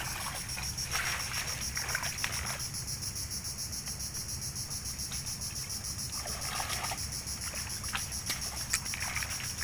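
Steady, high-pitched chorus of insects, pulsing evenly, with a few brief sloshes of water and mud as men wade in the shallows.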